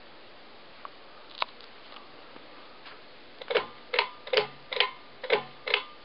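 Hampton Bay Babiberre ceiling fan ticking: six sharp metallic clicks, about two a second, each with a short ring, starting about three and a half seconds in over a steady hiss.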